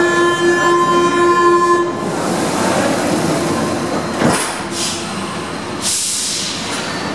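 Door-closing warning buzzer of a Paris Métro MP 89 train, a steady buzzing tone that stops about two seconds in. After it comes the car's steady noise, with a sharp knock about four seconds in and short hissing sounds.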